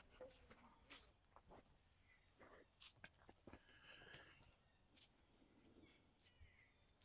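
Near silence: a faint, steady, high-pitched insect trill starts about a second in, with a few faint scattered taps.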